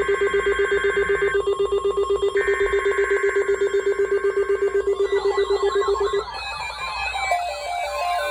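Several weather alert radios going off at once for a tornado watch. A fast pulsing alarm beep sounds under two long screeching bursts of digital alert header tones. About five seconds in, the beep stops and several warbling, siren-like alert tones start over one another.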